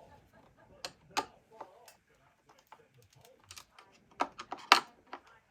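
Irregular light clicks and knocks of flat-pack furniture parts and hardware being handled and set down during assembly, with a louder knock near the end.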